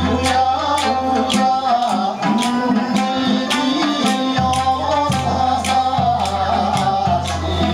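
Live traditional Okinawan music accompanying a dance: sanshin and a singing voice over sharp percussion clicks about twice a second.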